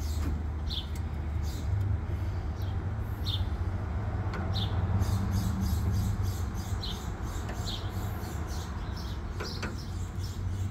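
A steady low engine hum, with a bird giving short falling chirps about once a second.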